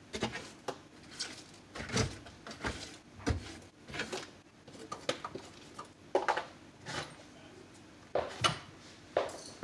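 Scattered light knocks and clicks, irregular and about one or two a second, from tools and drywall material being handled and set down.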